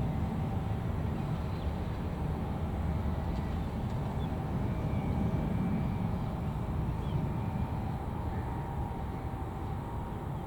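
Jet airliner's engines rumbling steadily as it climbs away after takeoff, a deep roar with a faint steady whine above it.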